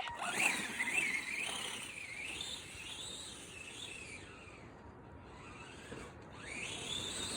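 Electric RC car motor whining as it drives, its pitch wavering up and down with the throttle. It fades away over the first few seconds, then comes back with a rising whine near the end.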